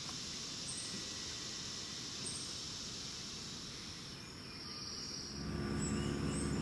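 Steady high-pitched insect buzz, with short bird chirps every second or two. About five seconds in, a low steady hum comes in and is louder than the insects.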